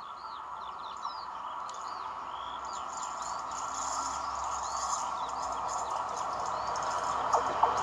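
A ČD Cargo class 753.7 diesel locomotive running light and approaching, its steady hum and low engine drone growing louder, with a few sharp clicks near the end. Songbirds chirp over it throughout.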